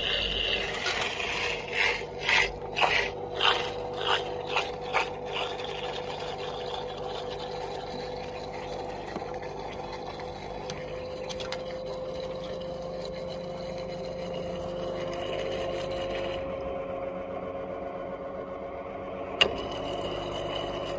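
LG washing machine running: about seven rhythmic surges in the first five seconds, then a steady mechanical hum whose tone slowly rises in pitch, with one sharp click near the end.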